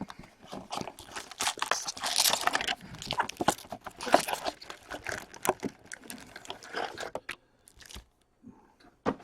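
Trading card pack wrapper crinkling and tearing as it is opened, with cards being handled; the rustling and crackling stop about seven seconds in.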